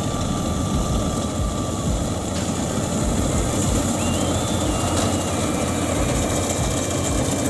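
Rice combine harvester's engine running steadily with a heavy rumble, and a thin high tone stepping up and down in pitch above it.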